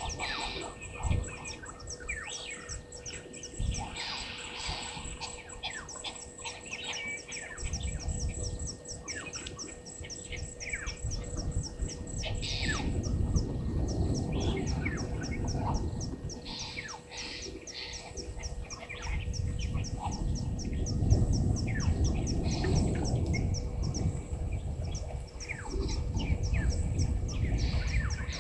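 Wild birds calling at a bush waterhole: many short, falling chirps and calls. Under them run a fast, even, high-pitched ticking and a low rumbling noise that grows louder through the middle and later part.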